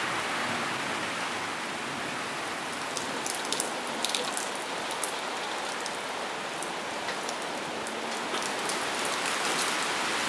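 Steady rain falling on a concrete path and grass, with a few sharp drop ticks close by about three to five seconds in.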